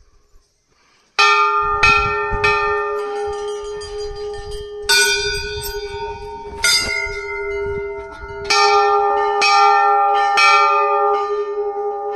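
Hanging brass temple bells rung by hand one after another, each strike ringing on with long tones at several pitches that overlap. The ringing begins a little over a second in and comes in three runs of quick strikes about half a second apart.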